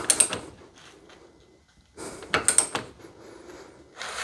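A bolt being pulled up with a long torque wrench and socket toward 40 lb in a pull-out test of a 3/8-16 rivet nut in 1/8-inch steel plate. The wrench, socket and loaded fastener creak and click in two spells, at the start and about two seconds in.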